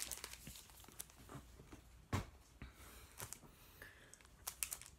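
Foil trading-card pack wrappers being handled: faint scattered crinkling and crackling, with a sharper crackle about two seconds in and a quick run of crackles near the end.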